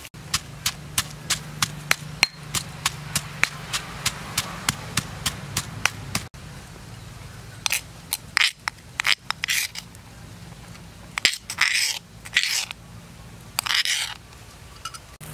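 Stone pestle pounding in a mortar, a quick steady run of knocks about three to four a second that stops about six seconds in. After that come several short scraping sounds.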